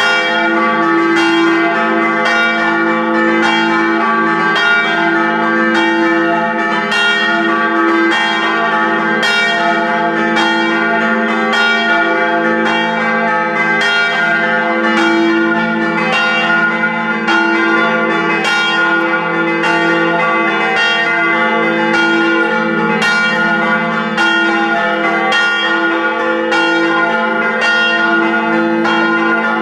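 Church bells pealing from the bell tower: several bells struck over and over in a steady, even succession, their tones ringing on and overlapping into a continuous loud peal.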